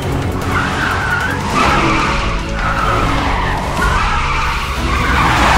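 Cartoon race-car sound effect: tyres squealing several times as the car swerves at speed.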